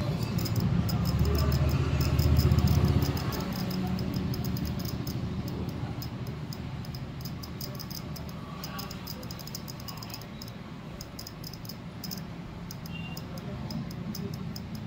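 Wagon R petrol fuel injector, wired straight to a battery and pulsed by hand, clicking rapidly as it fires cleaning chemical in fine jets. This is a test of the freshly cleaned injector, which had been choked with dirt. A low hum is loudest in the first three seconds.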